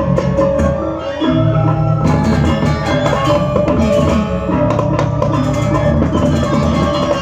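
Balinese gamelan ensemble playing a bebonangan-style piece: tuned bronze gongs and metallophones ringing over drums in a dense, fast texture. It thins briefly about a second in, then the full ensemble comes back in louder.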